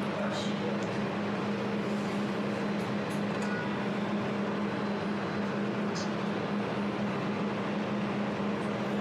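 Jewelry laser welding machine running after start-up, a steady hum from its cooling system with a few faint light ticks.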